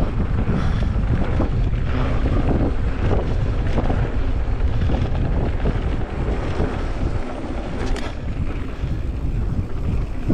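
Wind buffeting the camera microphone over the rumble and rattle of a mountain bike's tyres on a dirt trail at speed, with many small jolts over bumps and a sharp click about eight seconds in.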